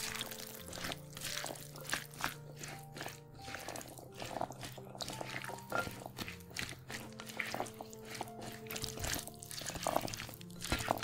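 Background music with held notes, over wet clicking and squishing of a chickpea and vegetable salad being stirred with a spatula in a glass bowl.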